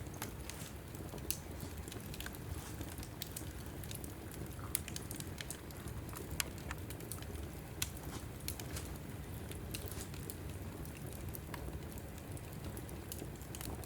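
Wood logs burning in a fireplace: a steady low rumble of flame with irregular sharp crackles and pops, a few of them louder than the rest.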